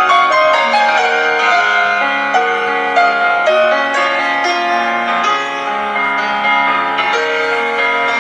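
Solo piano playing a slow, lyrical classical piece, with notes held and changing every half second or so.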